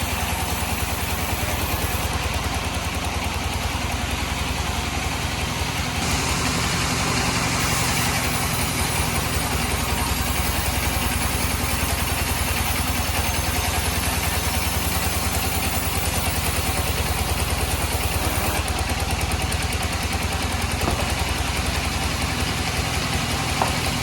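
Band sawmill running steadily with a low, pulsing engine-like drone, the sound getting a little louder about six seconds in.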